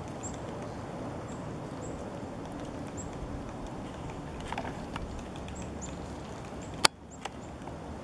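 Female black-backed woodpecker pecking into a tree trunk: faint, irregular taps over steady background noise, with one sharp click near the end and a smaller one just after.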